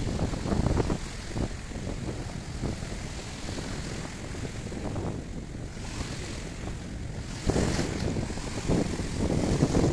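Wind buffeting the microphone over the wash of surf. About seven and a half seconds in, a louder rush of water sets in.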